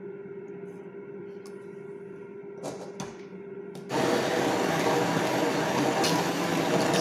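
Electric stick blender puréeing a pot of chilli, onion, garlic and tomato: a low steady hum and a couple of light clinks of a glass pot lid, then about four seconds in the blender starts up loud and runs with a steady whirring whine.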